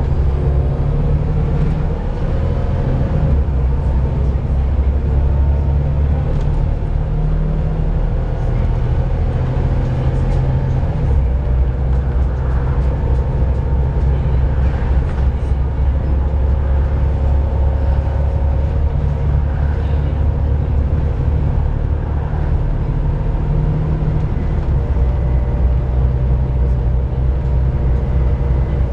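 Volvo B7TL double-decker bus's six-cylinder diesel engine running with a steady low drone, shifting slightly a few times, with a steady whine above it.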